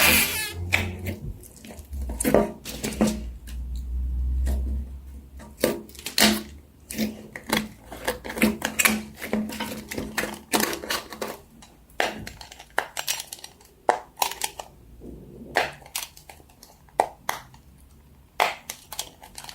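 Plastic fidget toys being handled and set down: many irregular clicks and knocks, with a low handling rumble a few seconds in.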